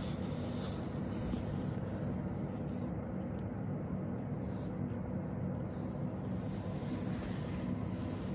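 A steady low rumble, even in level.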